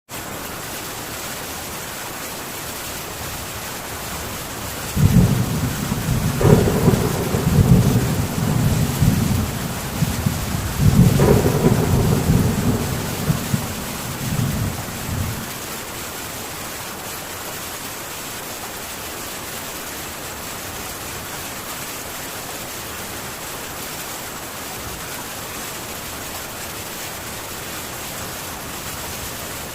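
Steady rain on a metal tin roof, with a roll of thunder starting about five seconds in, swelling twice and rumbling for about ten seconds before it dies away.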